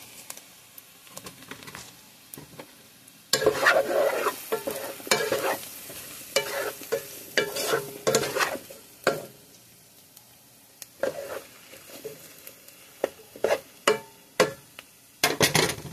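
Sliced mushrooms being stirred and turned with a spatula in a hot nonstick pan over sautéing onions, with irregular scraping, rustling strokes against a low frying sizzle. It is mostly quiet for the first three seconds, then the stirring strokes come in repeated bursts.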